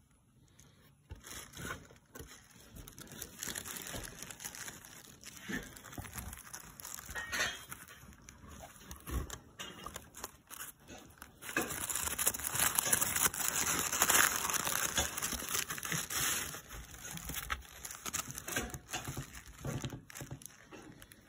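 Tissue paper crinkling and rustling as a hand and a hamster move about in it, with close handling noise. It is an irregular crackle, loudest for several seconds past the middle.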